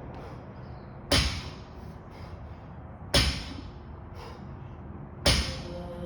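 Three loud thumps of gym equipment at a steady pace, about two seconds apart, with fainter knocks between them, over faint background music.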